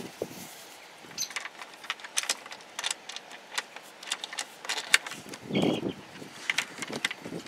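Scattered sharp clicks and small rattles of hard plastic and metal parts being handled as a chainsaw guide bar is fitted onto a battery chainsaw body.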